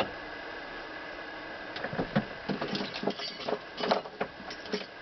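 Irregular knocks, clunks and scrapes, starting about two seconds in, as the cast-iron head of a Singer 127 sewing machine is handled and tipped on its wooden base.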